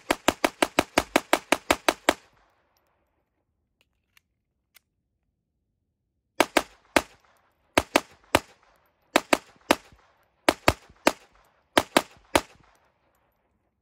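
Glock 44 pistol firing .22 LR rounds: a fast string of about a dozen shots in the first two seconds, a pause of about four seconds with a couple of faint clicks, then a slower run of shots in quick pairs and threes until near the end.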